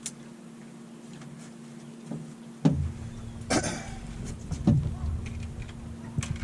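A steady low hum runs under a few sharp knocks and clatters from gear being handled on a boat, and from about two and a half seconds in, wind rumbles on the microphone.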